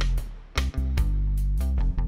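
Background music with a bass line and regular drum hits.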